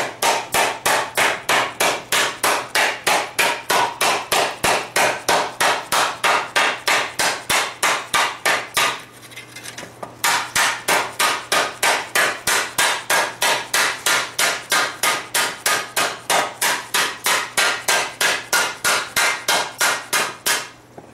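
Hand hammer striking a hot steel frying-pan blank on a wooden stump, hammering its outer rim to upset and shrink it. A fast, even run of blows at about four a second, with a pause of about a second partway through.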